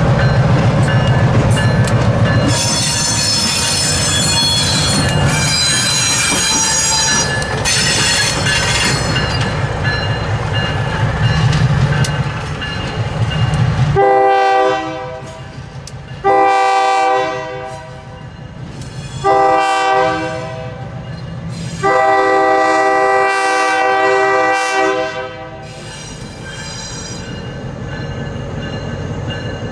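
EMD SW9 switcher locomotive's diesel engine running as it moves off, with high-pitched wheel squeal for several seconds in the first half. About halfway through, its horn sounds four blasts for a grade crossing, the last one the longest, and the engine runs more quietly after.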